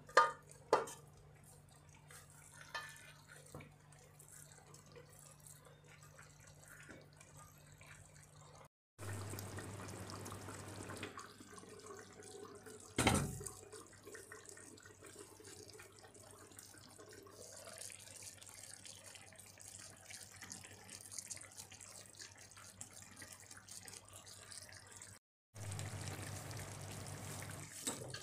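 A stainless-steel pot lid is set onto a cast-iron skillet with a couple of sharp clanks near the start. A low steady hiss follows, broken about 13 seconds in by one loud knock as something heavy is set on the lid.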